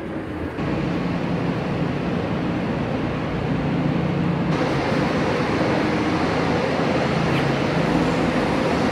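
Aria Express people-mover tram running, heard from inside the car: a steady rumble with a low motor hum. It picks up about half a second in and grows fuller and brighter about halfway through.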